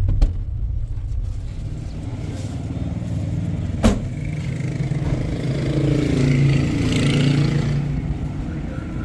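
Car running on the road, a steady low rumble, with a sharp knock about four seconds in.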